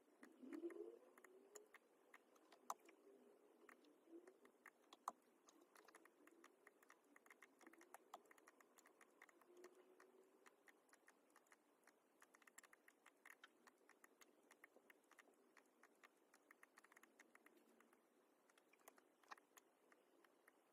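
Faint, irregular clicking and tapping of a laptop's keys and buttons as the computer is worked.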